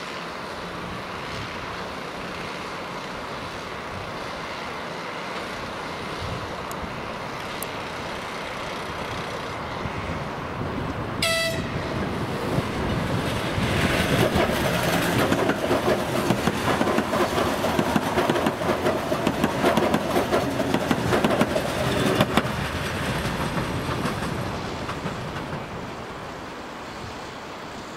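EG2Tv 'Ivolga' five-car DC electric train approaching, passing close by and moving away. It gives a short horn toot about eleven seconds in, and its wheels clatter over the rail joints and points as the cars go past, loudest in the middle, then fading.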